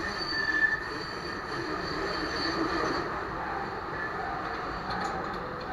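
Tram running on its rails through a narrow walled cutting into a tunnel: steady rolling noise of wheels on track, close walls throwing the sound back, with a brief high wheel squeal under a second in.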